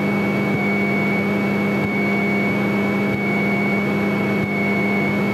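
Light single-engine airplane's piston engine running steadily at taxi power, an even drone with a constant thin high whine over it.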